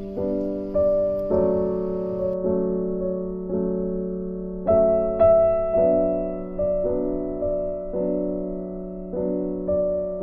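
Background music: gentle piano playing held notes and chords, a new one struck about every half second and fading before the next.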